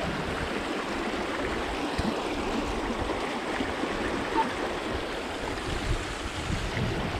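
Pond water rushing out through a channel cut in the pond bank, a steady noise of flowing water.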